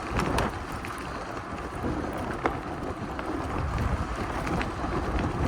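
Wind buffeting the microphone of a gravel bike rider, a steady low rumble over the hiss of tyres on a gravel road, with a few sharp clicks scattered through it.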